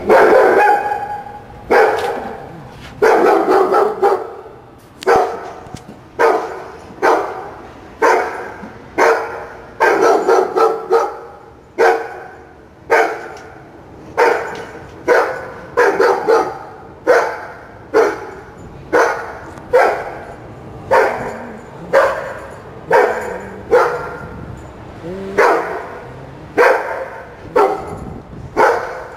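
A dog barking over and over, about once a second without letup.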